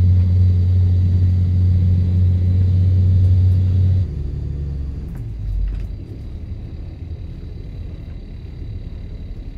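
Fishing boat's diesel engine running with a steady low drone, heard from the wheelhouse. About four seconds in the drone drops suddenly to a lower, rougher rumble, with a heavier thump near the middle.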